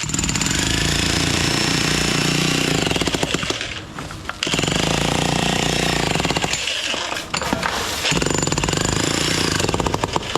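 Jackhammer breaking up concrete around a drain gully, hammering loud and fast in three runs with brief pauses about four seconds and seven and a half seconds in.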